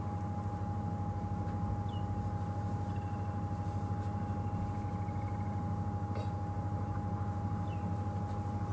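Safari game-drive vehicle's engine idling, a steady low throb, with a steady thin high whine above it and a few faint high chirps.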